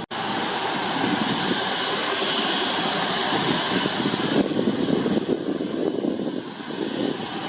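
Steady rushing jet noise of an Airbus A330 airliner, briefly cut off by an edit at the very start, then even throughout with a slight dip near the end.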